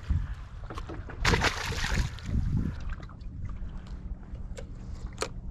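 Water and wind noise aboard a small drifting fishing boat, a steady low rumble. About a second in comes a louder rush of noise lasting a second or so, and near the end a few light knocks.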